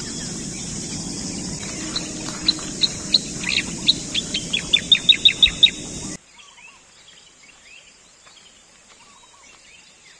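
Birdsong over a steady high hiss: a bird gives short, sharp chirps that come faster and faster, running into a quick series about five seconds in. About six seconds in, the sound drops abruptly to faint, scattered bird calls.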